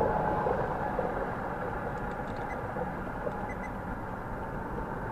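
Steady low rumble of vehicle noise: engines and traffic.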